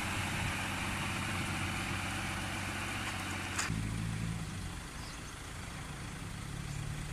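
Isuzu Deca FXZ360 dump truck's diesel engine running steadily at a low pitch. The sound changes abruptly about three and a half seconds in, dips a little, then grows again near the end.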